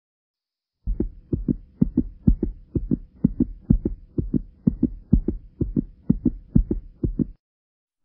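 Heartbeat sound effect: low double thumps, lub-dub, about two a second, over a faint steady hum. It starts about a second in and stops abruptly near the end.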